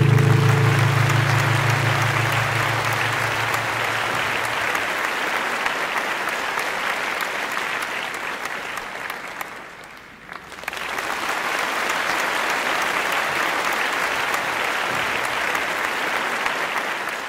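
Theatre audience applauding at the end of a flamenco dance, with the song's last chord dying away under the clapping in the first few seconds. The clapping fades briefly about ten seconds in, then swells back as strong.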